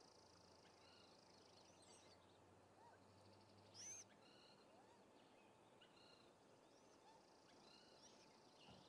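Faint background bird chirps and short whistled calls, scattered throughout, with one louder sharp chirp about four seconds in, over a faint steady high-pitched hiss.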